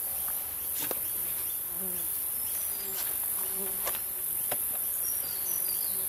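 Australian stingless native bees (sugarbag bees) buzzing around an opened hive, a few flying close past, over a steady high drone of insects. A few light clicks of the hive boxes being handled.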